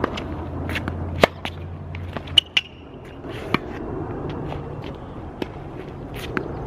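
Tennis balls struck by racquets and bouncing on a hard court during a rally: a series of sharp pops about a second apart, the loudest about a second in.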